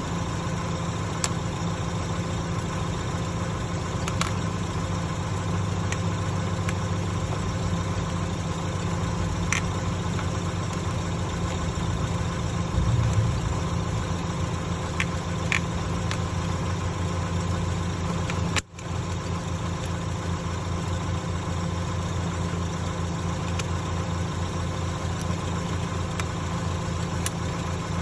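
An engine idling with a steady hum, and a few faint clicks over it. The sound cuts out for a moment about two-thirds of the way through.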